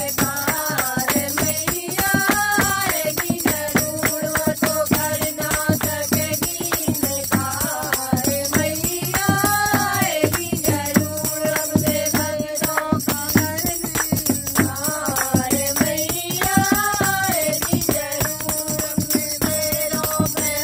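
Women singing a Hindu devotional bhajan to the goddess (Mata), one melodic line rising and falling again about every seven seconds, over steady, rapid rhythmic hand clapping.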